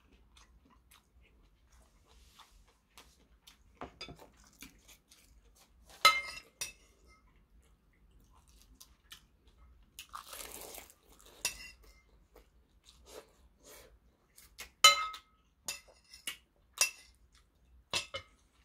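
Metal spoon clinking and scraping against a porcelain bowl while food is eaten, with soft chewing between. The two loudest clinks ring briefly, about six seconds in and near fifteen seconds.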